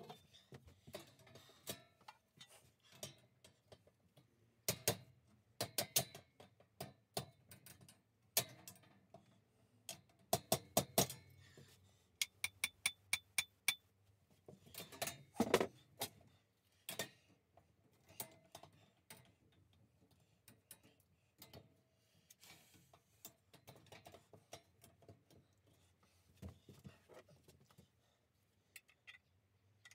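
Black steel parts of a boltless workbench frame clicking and clanking as the beams are handled and slotted into the upright posts. Scattered sharp metallic knocks, with a quick run of ringing taps about twelve seconds in and the loudest knock a few seconds later; the knocks grow fainter and sparser toward the end.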